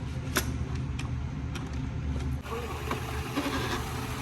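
Shark AV911S EZ robot vacuum powering up against its dock: a couple of sharp clicks, then about halfway through its motor and brushes start running with a steady hiss over a low hum.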